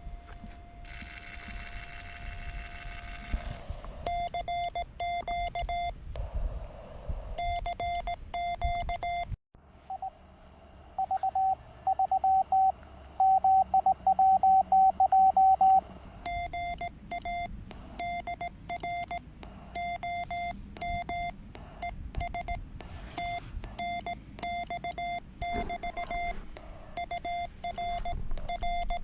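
Morse code (CW) from a QRP ham radio transceiver: a single mid-pitched beep keyed on and off in dots and dashes. It starts as a tone held steady for a few seconds with a short burst of hiss. After a brief dropout about a third of the way in, the keying is louder for several seconds.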